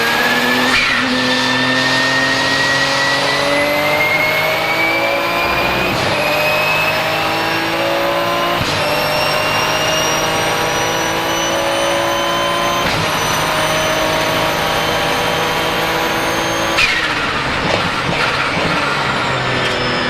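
The twin-turbo 3.9-litre flat-six of a Porsche 997 GT2 RSR race car accelerating hard, its note climbing through several quick upshifts under a high, steady turbo whistle. About three-quarters of the way through the throttle closes: the whistle cuts off with a short blow-off valve release and the engine note falls away.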